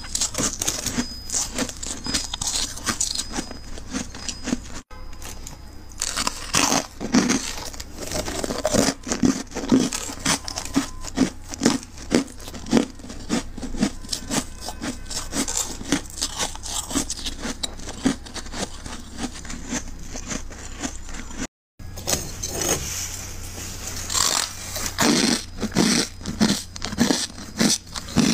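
Frost in a deep freezer being scraped, a dense run of scratchy, crunchy strokes with two brief drop-outs, about five seconds in and near 22 seconds.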